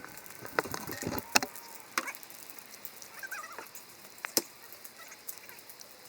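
Burning wooden building's fire crackling, with scattered sharp pops of burning wood a second or more apart over a low hiss.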